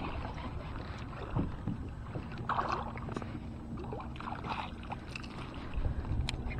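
Water lapping against a plastic kayak hull, with scattered light knocks and rustles of gear and clothing and a faint steady low hum through the middle.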